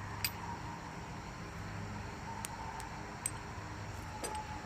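A few light, sharp clicks of a wrench working on a car battery terminal clamp, spread over a few seconds against a steady low background hum.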